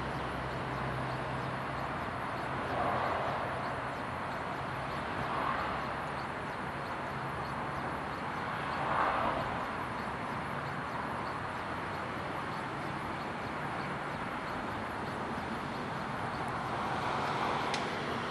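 Steady outdoor background noise, an even hiss with a faint low hum. It swells briefly four times: about three, five and a half, and nine seconds in, and again near the end.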